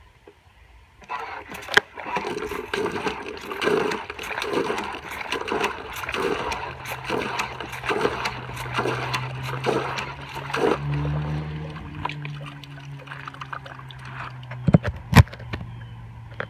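Water gushing and splashing into a plastic bucket in regular spurts, about one every three-quarters of a second, as the handle of a homemade CPVC hand pump on a hand-drilled well is worked up and down; the pumping stops a little over ten seconds in. A low steady hum runs underneath the second half, and a couple of sharp knocks come near the end.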